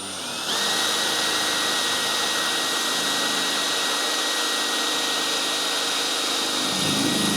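Electric power drill spinning up to speed and running with a steady high whine. Near the end a rougher, lower noise joins in.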